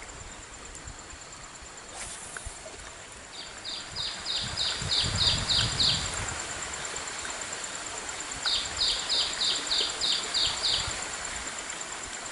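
A bird calling in two runs of about eight quick, falling chirps, roughly three a second, the first about three seconds in and the second near the end. Under it runs a steady high insect drone.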